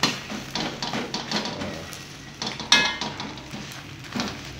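Metal spatula scraping and knocking against a wok while an omelette fries, with one loud ringing clank about two and a half seconds in. Light sizzling of the egg in oil underneath.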